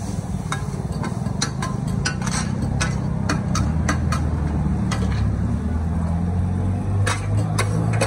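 Metal spatulas clinking and scraping against a large shallow steel pan as pad thai noodles are stir-fried, in irregular strokes, over a steady low rumble.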